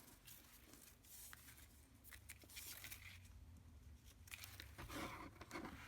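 Faint rustling and handling of paper and craft supplies, with a few light taps.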